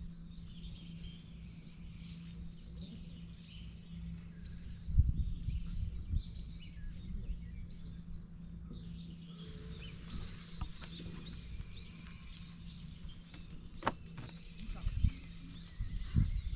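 Small birds chirping over a steady low hum, with a couple of dull knocks about five and fourteen seconds in.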